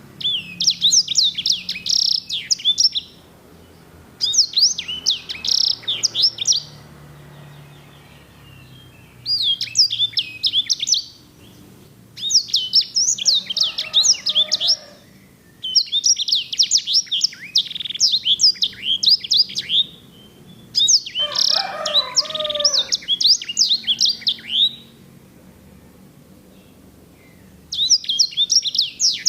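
A sanger (edelsänger) finch singing in repeated bursts of fast, high, rolling trills and warbles, about seven song phrases with short pauses between them.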